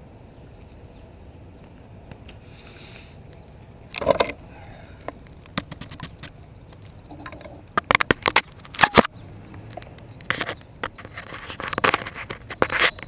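Handling noise from a quadcopter-mounted GoPro being picked up off the pavement and turned over by hand: a faint steady rush at first, then a loud scrape about four seconds in, followed by a run of sharp clicks, knocks and scrapes. The quadcopter's motors are not running.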